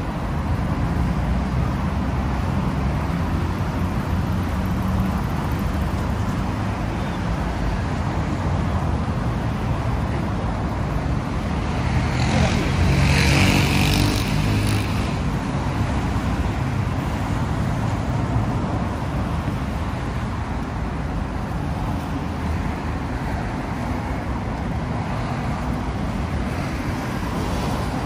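City street traffic noise: a steady rumble of cars and other road vehicles. One vehicle passes close about halfway through, rising and then fading.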